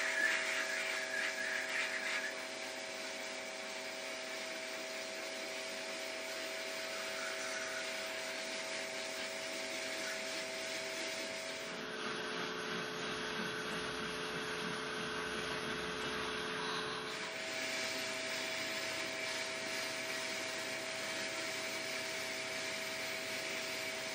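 A small electric power tool running steadily, its motor hum under a scratchy rubbing noise. It is louder and sharper for the first two seconds, and for about five seconds in the middle the hum sits lower.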